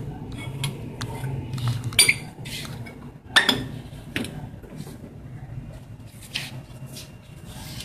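Metal objects clinking and knocking, with two louder clanks about two and three and a half seconds in, over a low steady hum.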